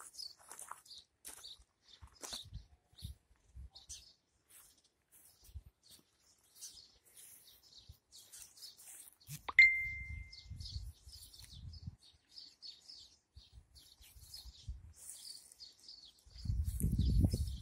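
Small garden birds chirping in the background, short high calls scattered throughout. A little past halfway, a single sharp ding rings out for about a second, the loudest sound. Low rumbles come after it and again near the end.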